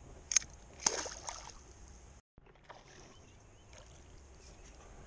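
A small cod splashing into shallow water as it is let go, two short splashes about half a second apart. Afterwards only faint water lapping and light reel handling.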